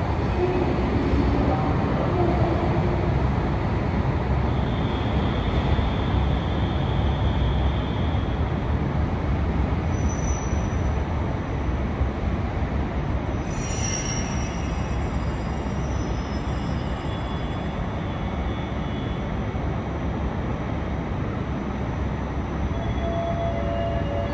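Trains standing idle at a covered station platform: a steady low rumble with a few faint high tones here and there.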